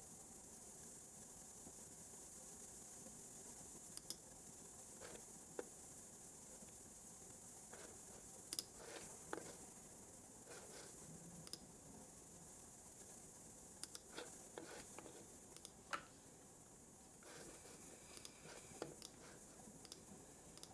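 Scattered soft clicks of a computer mouse and keyboard keys, a dozen or so spread irregularly with pauses between, over a steady faint hiss.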